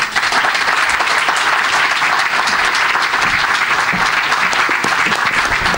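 Audience applauding steadily after a reading, a dense patter of many hands clapping that starts abruptly as the reading ends.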